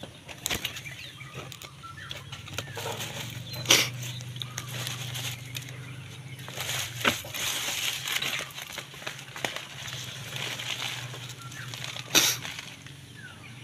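A knife blade digging and scraping through loose potting soil in a plastic grow bag, with rustling of the bag and leaves and irregular small knocks, two of them sharp, about 4 seconds in and near the end.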